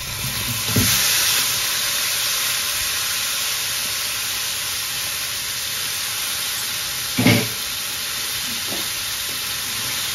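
Boiled chicken fillet pieces sizzling in hot oil and masala in a wok as they are tipped in and stirred with a silicone spatula. A single short knock about seven seconds in.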